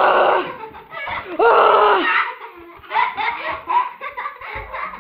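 Young children laughing during rough play: two loud, high-pitched squeals, one at the start and one about a second and a half in, then choppy giggling.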